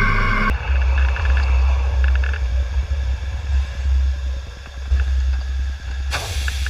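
Low rumble of the Terrier steam tank locomotive Knowle running along the line, picked up by a camera mounted down by its valve gear, with wind buffeting the microphone. A hiss comes in near the end, and the first half-second is the tail of background music.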